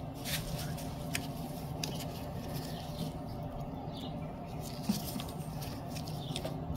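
Light, scattered metal clicks and scratching as needle-nose pliers hook a small tensioner spring onto the feed-roller chain tensioner of a DeWalt DW735 planer, over a faint steady hum.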